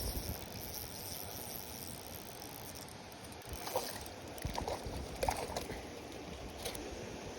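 Water trickling and lapping, with a few short sharp splashy sounds near the middle.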